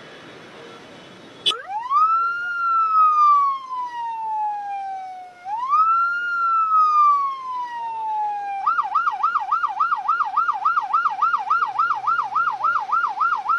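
Emergency vehicle's electronic siren switching on with a click about a second and a half in, over steady road noise. It sounds two long wails, each rising fast and falling slowly, then switches to a fast yelp of about four cycles a second.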